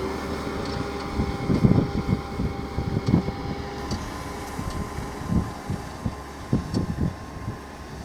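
Case tractor engine running steadily while ploughing, with gusts of wind buffeting the microphone.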